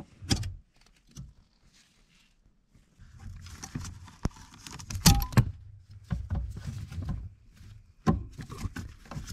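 Steel socket tools clinking and knocking against the metal pedal bracket and steering column, with rustling as a long extension and swivel are worked up to a hard-to-reach brake booster mounting nut. A few sharp clicks come about a second in, then irregular clinks and knocks with the loudest around the middle and near the end.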